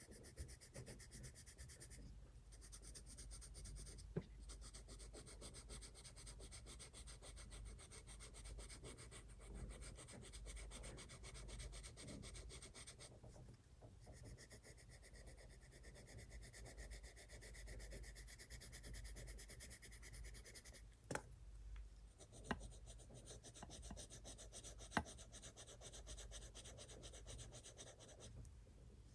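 Coloured pencil rubbing on sketchbook paper in quick back-and-forth colouring strokes, broken by a few short pauses. A handful of light, sharp clicks stand out.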